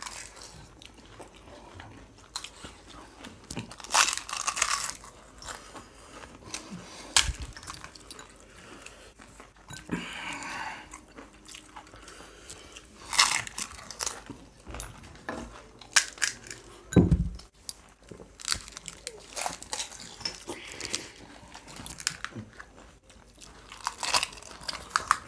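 Crisp pani puri (puchka) shells being bitten and chewed, with irregular crunches and chewing, and one dull knock past the middle.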